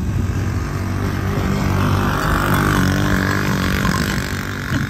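Small side-by-side UTV's engine running as it drives across a frosty field, its pitch rising a little about two seconds in.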